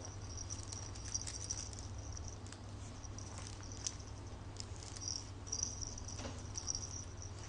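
Fabric of a Lamaze Freddie the Firefly plush toy crinkling and rustling as a baby's hands grab and tug at its wings, in short high hissy patches with scattered small clicks.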